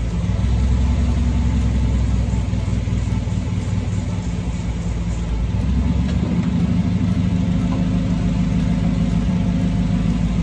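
Steady low drone of an engine or motor running, without change in speed.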